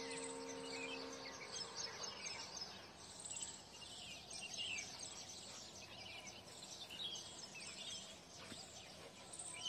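Outdoor ambience with many small birds chirping over a faint background hiss. A steady low hum sounds at the start and stops about a second and a half in.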